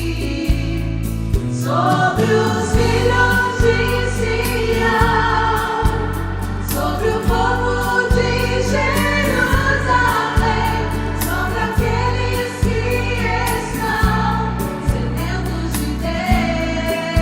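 Portuguese-language gospel worship song: sung vocals over a band with a steady pulsing bass and beat, the voices entering about two seconds in.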